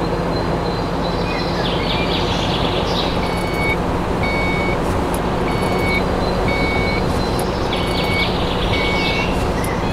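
A mini construction vehicle running steadily. From about three seconds in, its reversing alarm beeps at an even pace, roughly once every 0.8 seconds, with birds chirping now and then.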